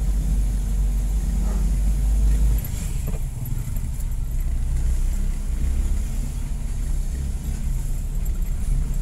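Car on the move: a steady low rumble of engine and road noise. Its deepest part drops about two and a half seconds in.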